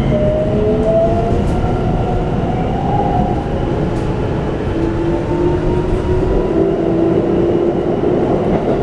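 Keikyu New 1000 series train's Toyo Denki IGBT-VVVF inverter and traction motors whining, several tones rising slowly in pitch as the train gathers speed, over a steady rumble of wheels on rail, heard from inside the passenger car. A lower whine joins about halfway through.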